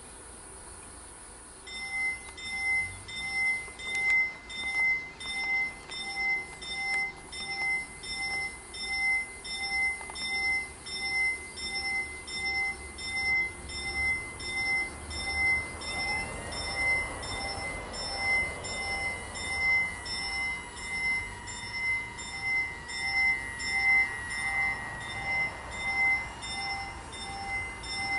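The level crossing's electronic warning bell, a pair of TM2000 units, starts ringing about two seconds in. It gives a rapid, evenly repeating ding about twice a second, signalling that a train is approaching. About halfway through, a rising motor whine joins as the crossing barriers begin to lower.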